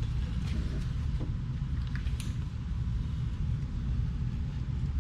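Steady low background rumble, with a few faint light clicks in the first couple of seconds.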